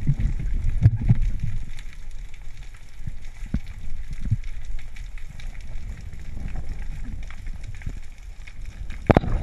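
Underwater sound recorded through a camera housing while a diver swims up toward the surface: a low, muffled rumble of moving water with many small scattered clicks, and one sharp knock a little after nine seconds in.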